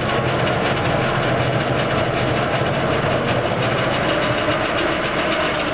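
Logan geared-head variable-speed bench lathe running, a steady mechanical whir of motor and gearbox over a low hum.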